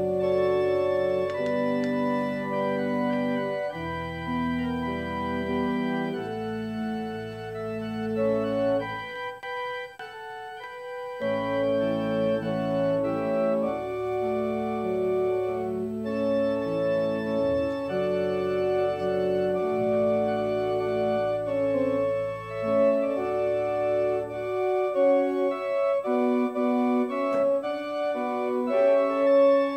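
Church organ playing sustained chords over held bass notes that change every second or two, thinning briefly about ten seconds in.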